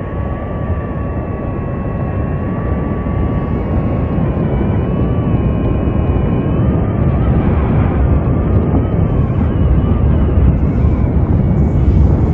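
Multirotor drone propellers whining in flight, a few steady, slightly wavering tones, over a low roar that builds steadily louder as the drone closes on the lava fountain.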